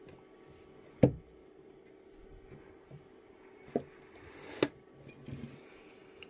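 A few sharp knocks and clicks of small parts and tools being handled and set down on a hard work surface, the loudest about a second in, with two more a few seconds later.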